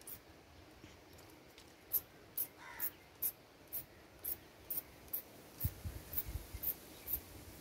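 Small hand-pump spray bottle spritzing liquid onto a plant: a quick run of about a dozen short hissing sprays, roughly two a second, with a few low bumps near the end.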